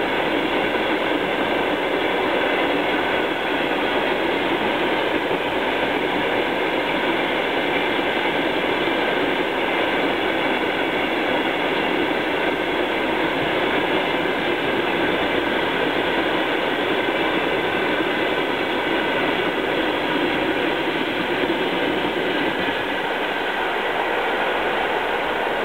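Loaded iron-ore-pellet freight wagons rolling past over the rails in a steady, continuous rumble and rattle of wheels and bogies, until the last wagon clears near the end.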